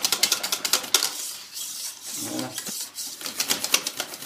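Wire whisk beating thick crème pâtissière in a stainless steel saucepan, the tines clicking rapidly against the pan. The beating eases off about a second in and picks up again near the end.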